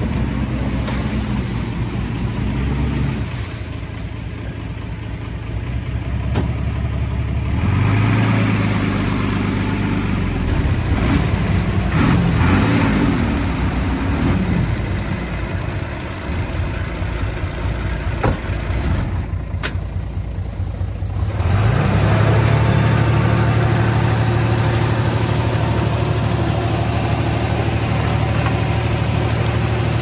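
Diesel engine of earthmoving machinery working soil. The engine speed shifts several times, rising about a third of the way in and again about two-thirds of the way through, then holding steady under load to the end. A few sharp metallic clicks are heard along the way.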